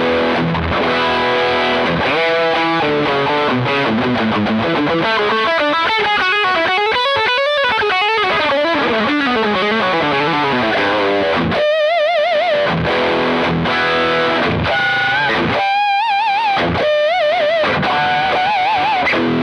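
Electric guitar played through a Fender Hot Rod Deluxe IV tube combo amp and its 12-inch Celestion Type A speaker, on the overdrive channel in high gain mode: heavily distorted chords and riffs, then from about halfway single-note lead lines with wide vibrato.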